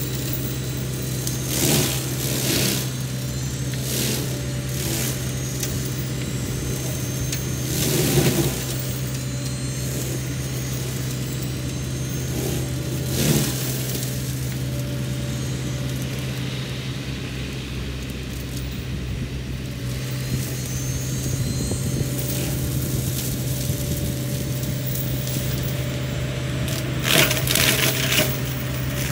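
Sany SY50U mini excavator's engine running steadily under load while its Mongo flail mulcher shreds brush and wood, with several sharp cracking, crunching bursts, the loudest about eight seconds in and near the end.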